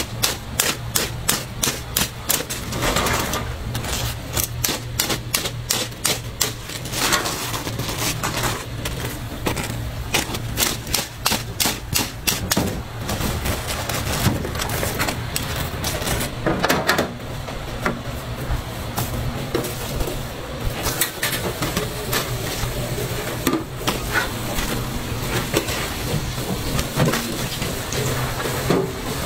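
Steel tongs and a wire skimmer clicking and clinking against the steel fryer and trays, with many quick sharp clicks, densest in the first half. Under them runs a steady sizzle of deep-frying oil.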